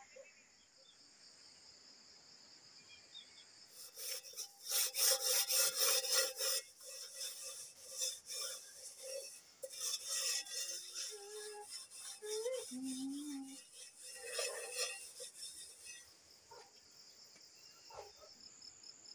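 Rapid, rhythmic rubbing and scraping strokes by hand on a round object, starting about four seconds in and stopping about four seconds before the end. A steady high insect drone runs underneath.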